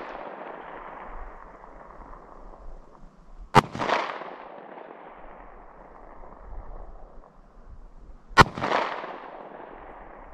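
Two 9mm shots from a Beretta 92FS pistol, about five seconds apart, each followed by a rolling echo that dies away over a second or two.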